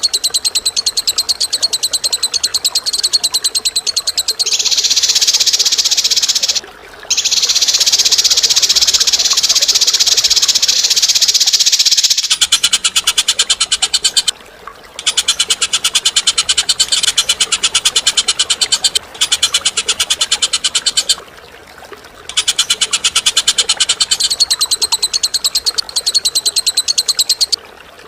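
A bird's sharp, very fast rattling chatter of rapidly repeated notes, in long bursts of several seconds broken by brief pauses, the kind of long chatter used as a training call for songbirds.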